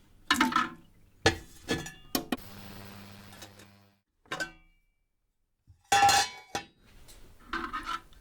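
Small metallic clinks of a circuit board and tools against an ultrasonic cleaner's steel tank, with a short stretch of the cleaner running as a steady hiss over a low hum in the middle. A loud cluster of clinks follows as the board is handled again.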